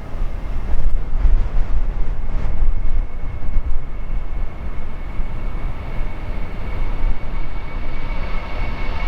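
Gusty wind buffeting the microphone with a heavy, uneven rumble. About halfway through, the rising jet whine of an Airbus A319-131's IAE V2500 engines comes in and grows louder toward the end.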